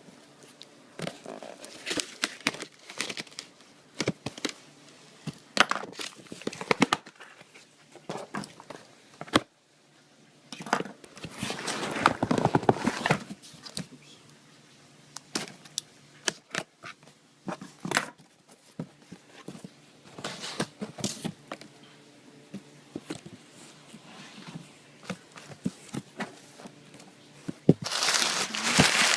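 A shipping package being opened by hand: packaging tearing and crinkling in irregular bursts, with scattered handling clicks and knocks and a couple of longer stretches of rustling.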